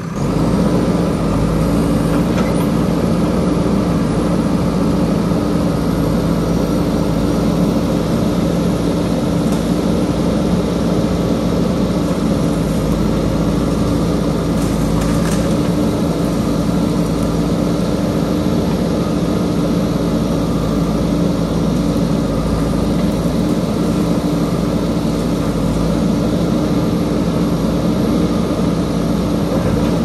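JCB backhoe loader's diesel engine running steadily at constant speed.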